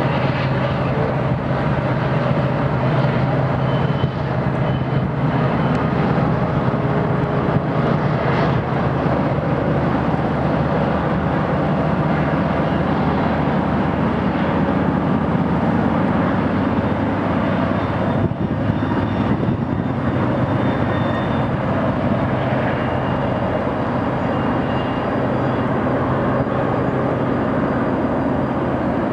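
Union Pacific double-stack container train passing: the diesel locomotives' engines drone in the first half, under a steady rumble of the well cars' steel wheels on the rail.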